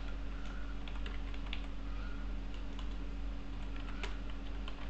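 Typing on a computer keyboard: irregular, quick key clicks over a steady low hum.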